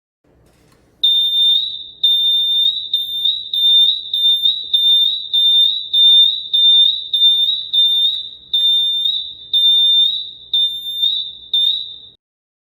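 Alarm buzzer of a QM-2000SD leak-detection alarm unit sounding: a shrill, high-pitched beeping about twice a second that starts about a second in and cuts off suddenly near the end.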